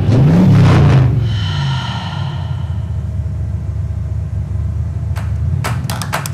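Logo intro sound design: a heavy whoosh and rumble whose low tone rises and falls in the first second, then a bright ringing shimmer that fades over the next couple of seconds above a steady low drone. Near the end, sharp taps begin as the background music starts.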